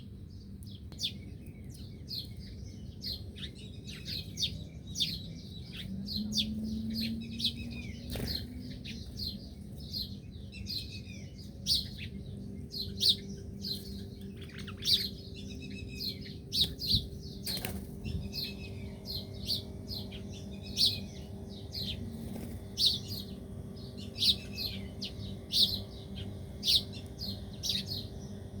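Small birds chirping: a busy, continuous run of short high chirps and a few lower sliding notes. A faint steady low hum sits underneath, and there are two sharp clicks.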